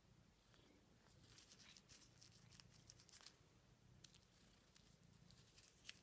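Faint crinkling of a plastic-film Cadbury Fudge wrapper as a kitten bats and paws at it in a hand, in quick runs of small crackles, busiest about two to three seconds in and again near the end.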